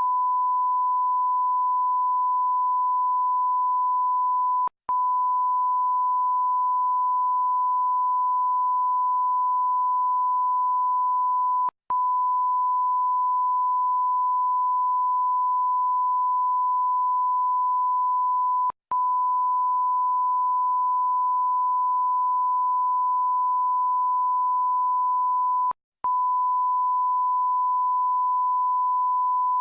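Censor bleep: a steady 1 kHz sine tone held continuously, broken by a split-second gap with a faint click about every seven seconds, four times in all.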